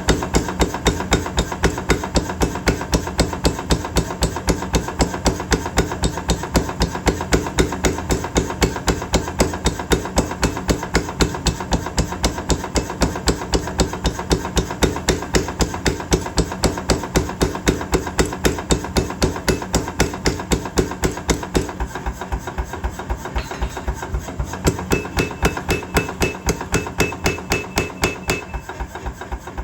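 Power hammer striking hot steel in a fast, even rhythm of several blows a second, the blows getting somewhat lighter in the last third.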